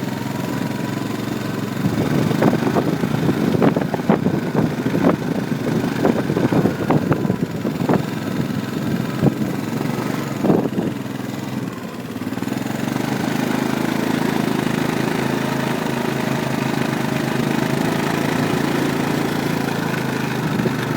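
ATV engine running steadily, with a stretch of sharp knocks and rattles from about two seconds in until about twelve seconds in, after which the engine runs on evenly.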